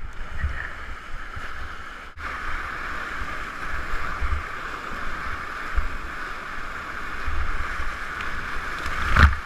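Whitewater rapids rushing and churning around a kayak as it runs the rapid, a steady wash of water noise with irregular low thuds of water slapping the boat. A louder splash comes near the end.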